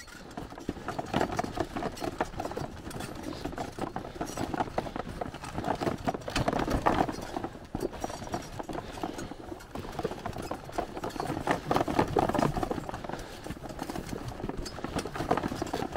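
Footsteps and a game cart loaded with decoy bags being pulled over dry, grassy ground: continuous rattling and rustling that swells and eases every few seconds.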